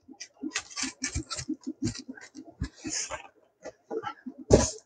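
Polystyrene foam shipping box being handled: a string of light knocks, rustles and squeaky foam rubs as the lid goes back on and the box is shifted, with one louder thump about four and a half seconds in.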